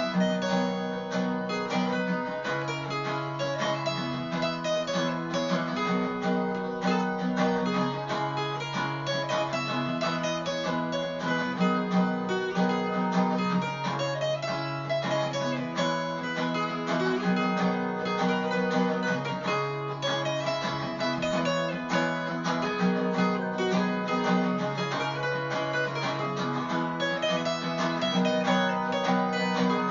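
Background music: acoustic guitar, picked and strummed, with the chords changing about every two seconds.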